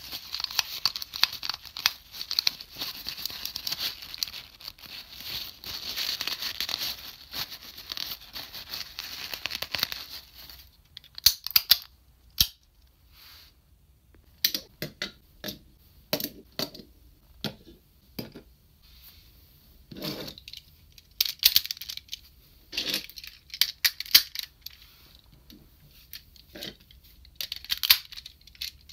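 A kitchen paper towel rubbing and crinkling against a hard plastic toy train as it is wiped down, a steady rustle for about ten seconds. After that, scattered sharp clicks and clacks of plastic toy train parts being handled and fitted together.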